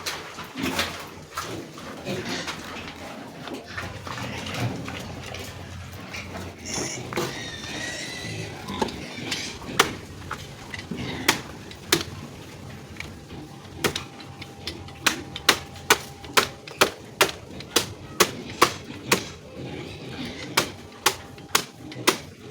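A run of sharp knocks, scattered at first, then steady at about two or three a second through the second half. A brief high wavering squeal comes about seven seconds in.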